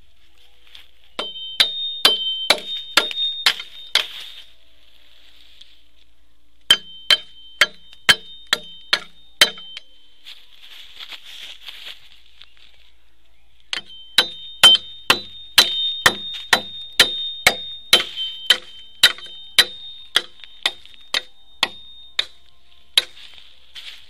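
A blade chopping into a green bamboo pole: three runs of quick, sharp blows, about two to three a second, each with a bright ring, separated by short pauses.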